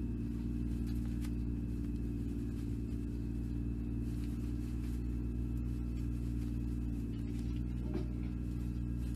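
A steady low machine hum made of several fixed tones, unchanging throughout.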